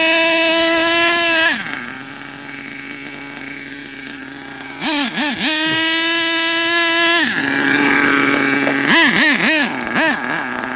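HPI Savage 25 RC monster truck's nitro engine, fitted with a new exhaust, running at high revs with a steady high whine, dropping to a lower, quieter drone about two seconds in. It is blipped up and down at about five seconds, then held high again, and blipped in quick bursts near the end.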